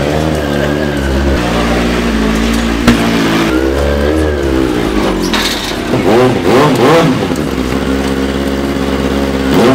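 Kawasaki ZX-6R 636 inline-four sportbike engine idling and being blipped, its revs rising and falling several times, twice in quick succession about two-thirds of the way through, before settling to a steady idle. There is a brief sharp click about three seconds in.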